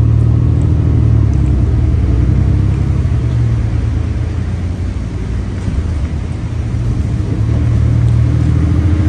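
Cabin sound of a 2016 New Flyer XN40 compressed-natural-gas bus under way: a steady, low engine and drivetrain drone that eases off about five seconds in and builds again near the end as the bus pulls on.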